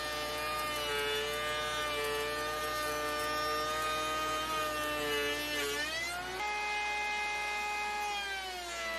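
Porter Cable 690 router spinning a stacked cope-and-stick bit in a router table while cutting the edge profile in a board. It gives a steady whine that sags under the cut, rises sharply about six seconds in as the load comes off, and drops again near the end as the next pass starts.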